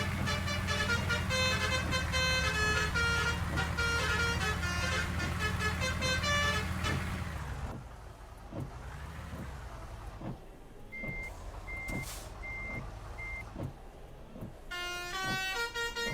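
A bus's basuri telolet horn playing a quick multi-note tune over the running engine. After about seven seconds the tune and the engine drone stop. The quieter stretch that follows has a few knocks and four short, evenly spaced high beeps, and the horn tune starts again near the end.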